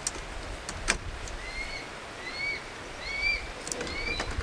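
Folding camp side tables being set up, with two sharp clicks from their parts about a second apart. A steady low rumble runs under them. Four short, similar chirps follow at even spacing, each rising then levelling off.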